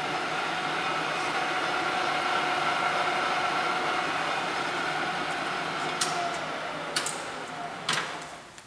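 Takisawa TSL-800D engine lathe's geared headstock running at 560 RPM with a steady whine. Near the end come a few sharp clicks, the spindle is shut off, and the running sound dies away.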